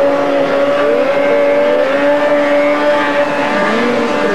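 Racing snowmobiles' two-stroke engines, Ski-Doo sleds among them, running at speed. More than one engine whines at once, each rising and falling in pitch as the sleds pass.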